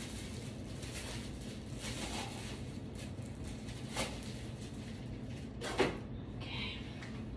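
A steady low room hum with two short knocks from objects being handled, a faint one about four seconds in and a louder one near six seconds.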